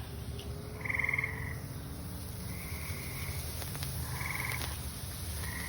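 Frogs calling: short pulsed trills, about four of them, repeating every second and a half or so.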